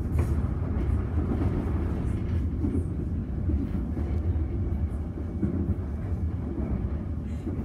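Electric suburban train, an HCMT, heard from inside the carriage as it runs between stations: a steady, mostly low-pitched running noise from the wheels and motors.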